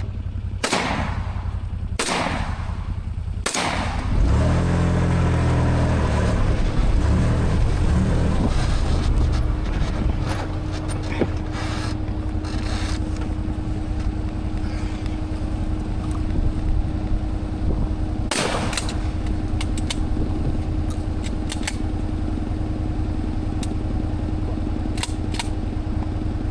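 Side-by-side UTV engine running hard at full throttle over rough ground, with heavy rumbling and jolting about 4 to 8 seconds in and a steady drone from about 9 seconds on. Several sharp bangs cut through it: three in the first few seconds and one more near 18 seconds.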